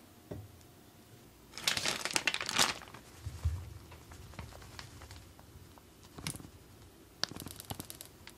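A bag of cake flour crinkling in short crackly bursts as it is handled and tipped to pour flour into a wooden bowl. The loudest burst comes about two seconds in, with a quicker run of crinkles near the end.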